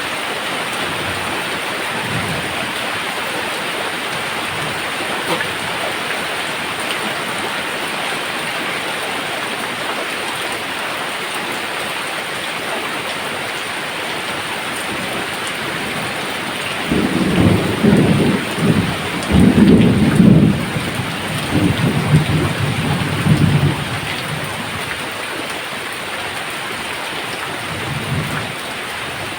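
Steady rain falling, with thunder rumbling in several rolls for about seven seconds past the middle, the loudest part; fainter low rumbles come near the start and near the end.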